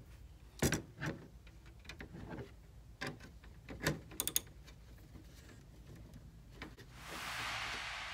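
Scattered small clicks and knocks of a hand driver with a tiny Torx bit against the plastic sunroof sunshade frame as it is set on a small screw, then a short hiss near the end.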